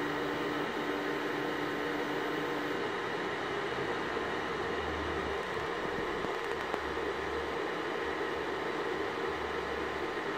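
Anycubic Photon resin 3D printer running: the steady whir of its cooling fan, with a steady motor hum for the first few seconds as the Z-axis moves the build plate down, stopping before the UV layer exposure.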